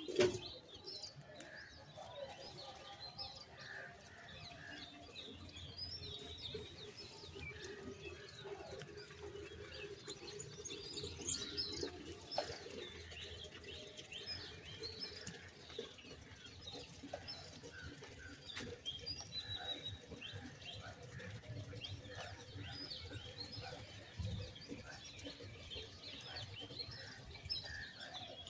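Small birds chirping: many short, high chirps overlapping throughout, fairly faint.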